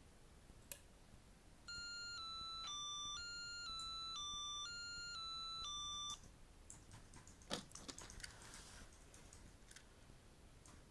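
Eaglemaster E8 car alarm sounding an electronic ringtone-like chime: a pattern of three descending beeps, about two notes a second, played three times over about four and a half seconds and then cut off. A short click comes just before it, and faint clicks and rustles come after.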